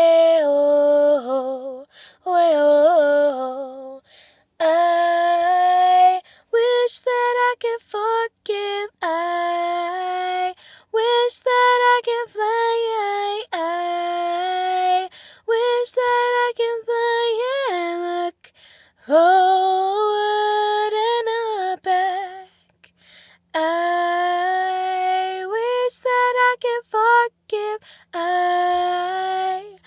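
A girl singing unaccompanied in a slow, lullaby-like melody: long held notes, some sliding in pitch, with short pauses for breath between phrases.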